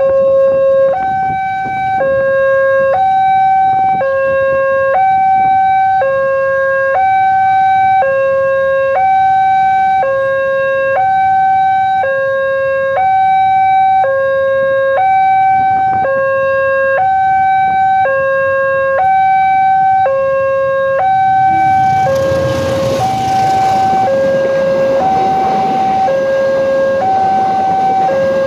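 Railway level-crossing warning alarm sounding a steady two-tone signal, alternating between a lower and a higher tone about once a second: the signal that a train is approaching. About 22 seconds in, the rumble of a train arriving at the crossing rises under it.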